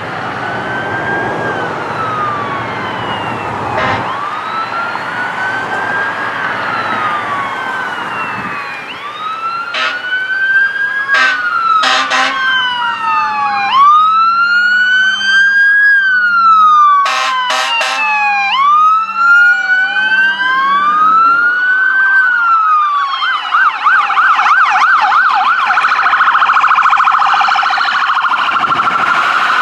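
Emergency vehicles running code 3 with electronic sirens in a slow rising-and-falling wail. Two clusters of short horn blasts sound partway through, and the siren switches to a fast yelp for the last few seconds.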